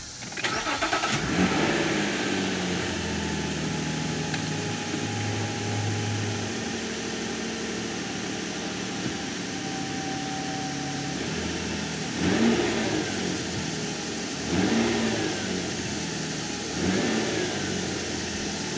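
The 2005 Nissan Maxima's 3.5-litre V6 cranks and catches about a second in, then settles into a steady idle. Near the end the throttle is blipped three times, each a short rise and fall in revs.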